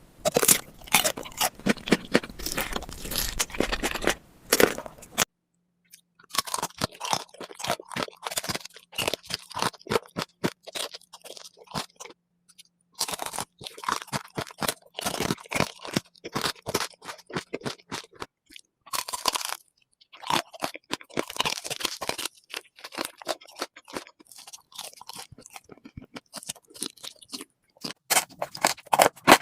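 Close-miked eating sounds: crisp crunching bites and chewing of food, a dense run of sharp crackles. It comes in several short stretches broken by brief silences, about five seconds in, again near thirteen seconds and near nineteen seconds.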